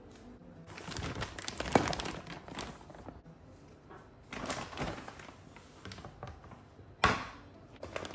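A plastic bag of dates rustling and crinkling as it is handled, in several short spells, with one sharp knock about seven seconds in.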